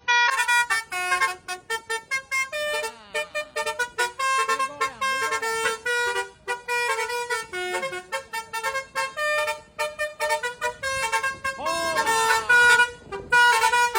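Telolet basuri musical horn playing a fast, jumpy tune of short, clipped notes, with a few sliding notes that bend up and down.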